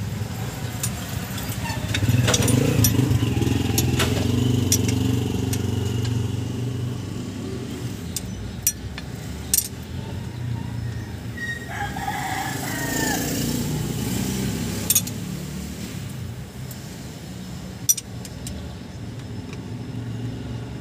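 A vehicle engine running nearby, louder for a few seconds near the start, with a few sharp metal clicks of hand tools. A rooster crows briefly about twelve seconds in.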